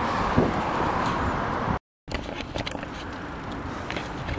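Wind and road noise on a handheld camera's microphone while riding a bicycle along a street: a steady rushing hiss with a low rumble. It cuts out completely for a moment about two seconds in, then comes back a little quieter.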